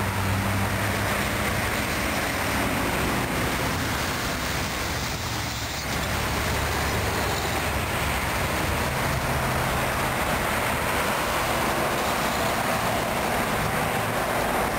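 Steady highway traffic noise from cars and heavy trucks passing close by: a continuous rush of tyre noise with an engine drone rising at the start and again about nine seconds in.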